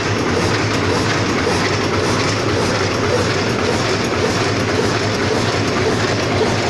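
High-speed paper cup making machine running, a loud, steady mechanical clatter with a fast, even rhythm from its cycling forming mechanism.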